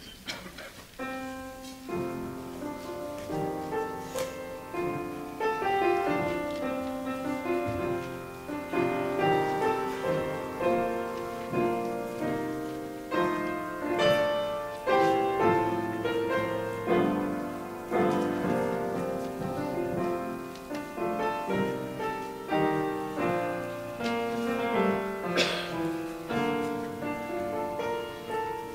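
Solo piano playing a slow offertory piece while the offering is collected during a church service. It begins about a second in, with single notes struck and left to fade.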